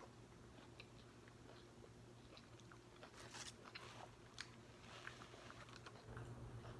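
Faint close-up chewing and biting of a Subway sub sandwich: soft wet mouth clicks and crunches, busiest about halfway through, over a low steady hum.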